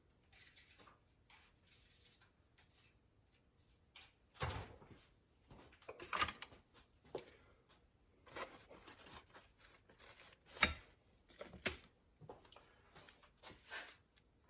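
Scattered small clicks and knocks from hand work with tools and materials, irregularly spaced and louder after about four seconds, with faint rustling before that.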